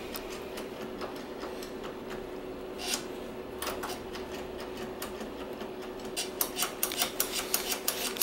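Light clicks and taps from hands working on a motorcycle's rear brake while it is being bled, with one sharper click about three seconds in and a quick, uneven run of ticks in the last two seconds, over a faint steady hum.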